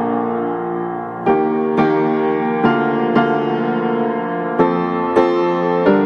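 Slow background piano music, with new notes and chords struck every half second to a second and left to ring.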